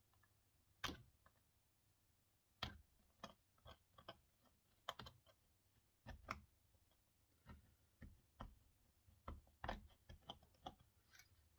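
Faint, irregular clicks and light taps, a dozen or more spread unevenly, of small hand tools and parts being handled during soldering work on a model railway turntable.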